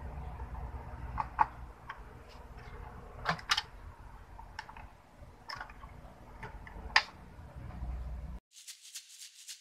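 Scattered plastic and metal clicks and knocks of a 3.5-inch hard drive being worked loose and lifted out of its drive bay in a Dell desktop case, the loudest about seven seconds in, over a low hum. Near the end the hum cuts off and background music with a quick, even beat starts.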